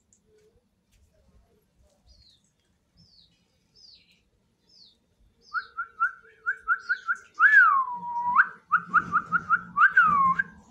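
Clear whistled notes: a run of quick short rising notes, then a long note swooping down and holding. More quick notes follow, with a second downward swoop near the end. Faint high chirps, about one a second, come before them.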